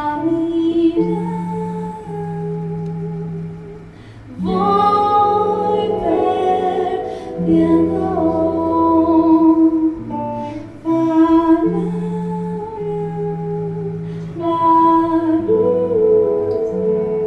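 A female voice sings long held phrases over sustained keyboard tones, each phrase lasting a few seconds with brief breaks between.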